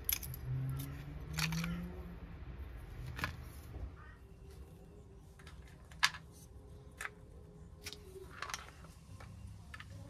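Scattered light clicks and taps of small metal parts and a little screw-type gear puller being handled on a workbench, over a faint low hum.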